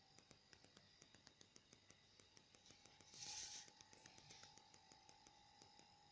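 Near silence with faint rapid clicking, about four or five clicks a second, and a brief hiss about three seconds in.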